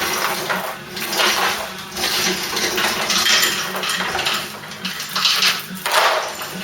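Metallic clattering and rattling in irregular bursts of about half a second to a second each.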